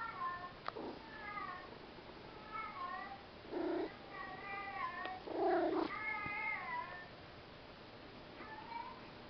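Domestic cat meowing along with the meows of a cat video played on a phone: a run of short, falling meows, with two louder, lower meows about three and a half and five and a half seconds in.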